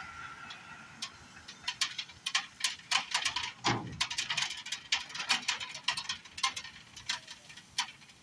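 Crane's clamshell grab bucket biting into a barge-load of crushed stone: a dense, irregular clatter of stones knocking and rattling as the jaws close, with a dull thud about three and a half seconds in.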